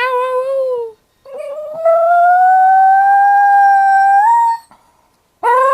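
Chinese crested dog howling in an odd, high, wavering voice: a short howl of about a second, then a long howl that slowly rises in pitch and jumps up just before it breaks off, and another rising howl starting near the end.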